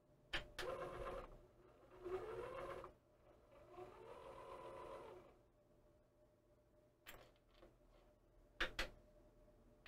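The disc-handling mechanism of a Sanjin DX-400 400-disc CD/DVD changer whirring in three short runs of a second or so, its motor pitch rising and falling, after a click from a front-panel button. A few sharp button clicks come near the end.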